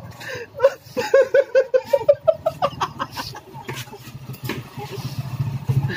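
People laughing in quick runs of 'ha-ha' pulses. Under the laughter is a low, rapid pulsing rumble that grows louder near the end.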